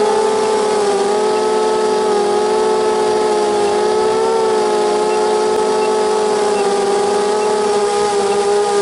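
Radio-controlled copter's motors and propellers whining steadily in flight, recorded from on board; the pitch wavers slightly as the throttle shifts.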